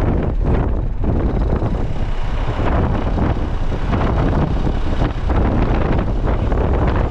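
Heavy wind buffeting the camera microphone on a moving motorcycle, with the motorcycle's running and road noise underneath: a loud, steady rush.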